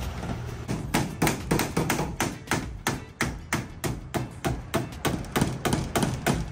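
Two claw hammers nailing flat panels onto a house's timber wall frame, sharp strikes at about four a second in an uneven, interleaved rhythm.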